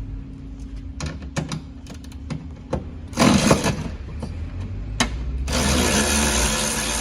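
Cordless power tool undoing the 10 mm bolts that hold a window regulator inside a car door: a few light clicks, a short loud burst about three seconds in, then from about five and a half seconds a steady motor whir as a bolt is spun out.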